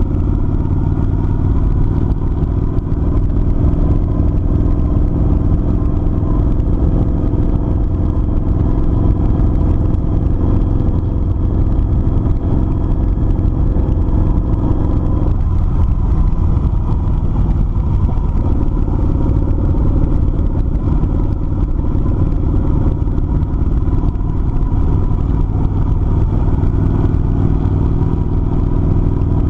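Kawasaki Vulcan 900 cruiser's V-twin engine running steadily while riding, heard from on the bike, with a heavy low rumble. Its note shifts briefly about halfway through.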